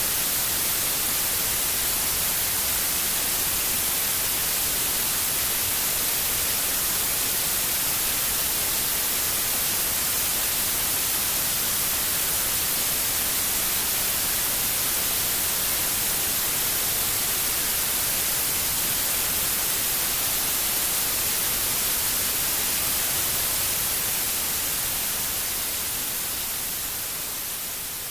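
Steady electronic hiss, like white noise, strongest in the treble with no tones or rhythm in it, fading slowly near the end.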